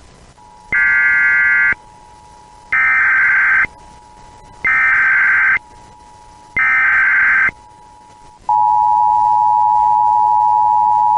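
Emergency Alert System activation: four screeching bursts of SAME header data, each about a second long and about two seconds apart, then the steady two-tone EAS attention signal starts about eight and a half seconds in.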